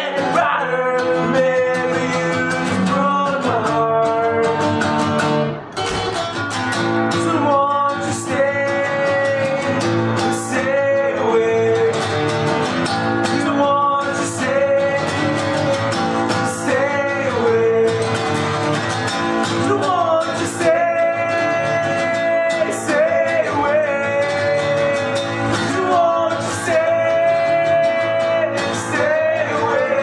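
Two acoustic guitars playing a song under a singing voice that holds long notes.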